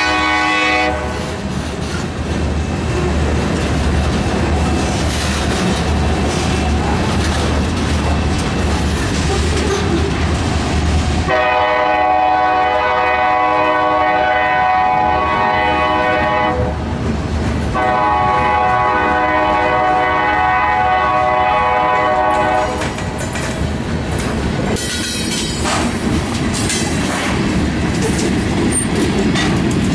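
CSX freight train passing: a diesel locomotive horn ends about a second in, the diesel engines run past with a steady low drone, then the horn sounds two long blasts in the middle. After the second blast, freight cars roll by with a clickety-clack of wheels over the rails.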